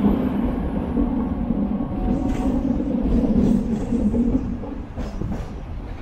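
Hong Kong double-decker electric tram running along its rails: a steady low rumble of wheels and running gear, with a few short clicks as it goes. It gets quieter near the end.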